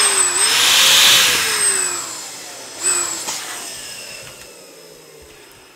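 Electric balloon pump running as it fills a latex LED balloon: a steady rush of air with a motor whine that rises and falls. It stops about two seconds in, gives one short burst just before three seconds, then fades away.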